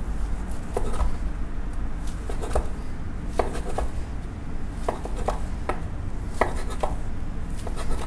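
Sushi roll being worked on a cutting board: a series of light, irregular knocks and taps, some in quick pairs, over a steady low hum.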